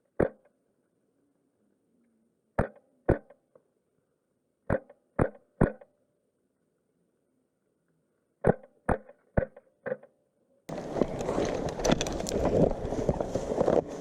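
Wolverine MTW HPA airsoft rifle firing single semi-automatic shots, each a sharp crack. They come in groups of one, two, three and four, about half a second apart, with dead silence between. Noisy outdoor rustling returns near the end.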